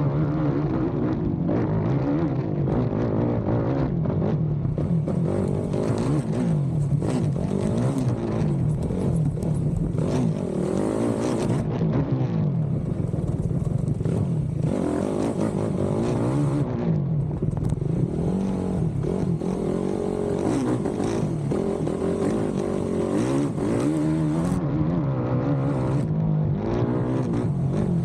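Racing ATV's engine revving hard, its pitch rising and falling again and again as the rider accelerates and backs off, with knocks and clatter from the quad bouncing over rough ground.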